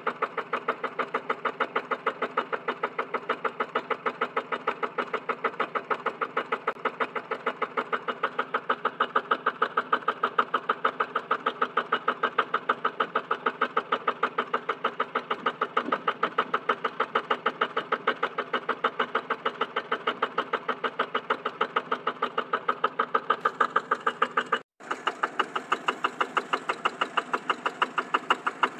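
Single-cylinder diesel walking-tractor engine running steadily while it drives a water pump, with a fast, even exhaust beat. About 25 seconds in the sound breaks off for a moment and picks up again from a Yanmar single-cylinder diesel belted to the pump, running the same way.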